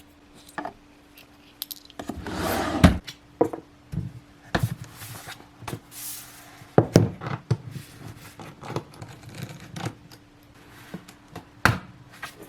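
A MacBook Pro's aluminium bottom case and small tools being handled to open the laptop: a string of small clicks and knocks with scraping and rubbing in between, over a faint steady hum.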